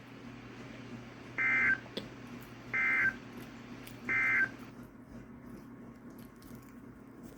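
Emergency Alert System end-of-message data bursts on NOAA Weather Radio: three short, identical buzzy two-tone digital chirps about 1.3 seconds apart, signalling that the warning message has ended. A faint steady low hum runs underneath.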